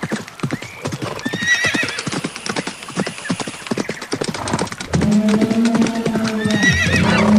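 Horses galloping: a rapid, uneven clatter of hoofbeats, with a horse whinnying about a second and a half in and again near the end. A low held sound comes in about five seconds in and is the loudest part.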